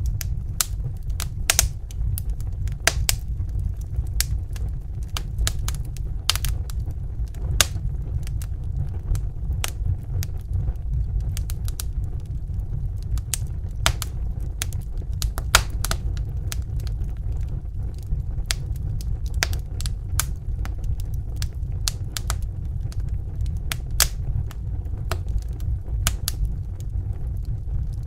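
Wood fire crackling in a fireplace: irregular sharp pops and snaps, a few loud ones among many small ones, over a steady low rumble of burning.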